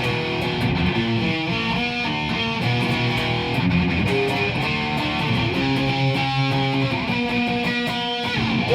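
Instrumental guitar break in a punk song: guitars playing a run of held chords that change about once a second, with no singing.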